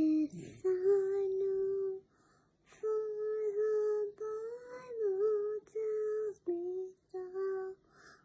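A young girl singing slowly in long held notes, a gentle tune broken by short pauses between phrases.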